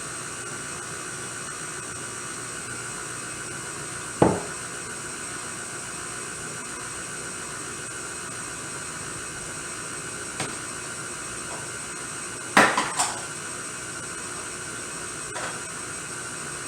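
KitchenAid stand mixer's motor running steadily as it mixes chocolate cupcake batter, with a few sharp knocks and clinks: one about four seconds in, a louder pair around twelve and a half seconds, and fainter ones between.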